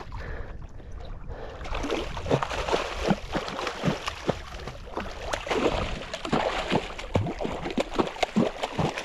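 A small hooked shark thrashing at the water's surface: irregular splashing and sloshing, busiest from about two seconds in.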